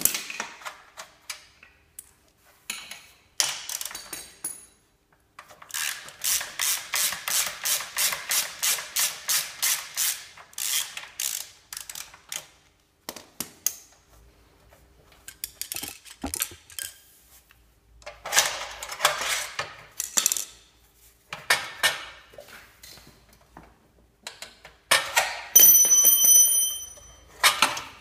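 Hand socket ratchet wrench clicking in runs, about four clicks a second, as motorcycle exhaust mounting bolts are turned. A brief metallic ringing near the end.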